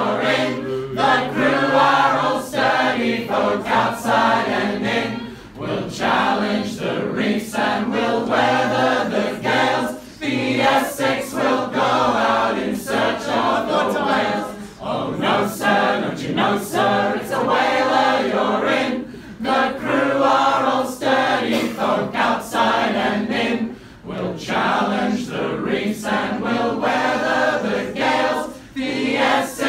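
A group of voices singing a sea shanty unaccompanied, a lead singer with the room joining in, in phrases with short breaks for breath.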